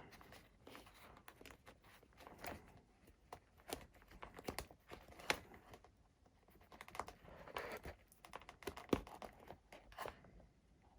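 Faint, irregular small clicks and light rustling from hands handling wire leads and plug connectors on a model plane's electronics.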